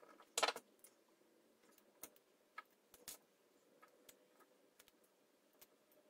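Faint, scattered clicks and taps of a screwdriver and small metal switch contacts against a power window switch's circuit board and a wooden tabletop. The loudest is a short clatter about half a second in.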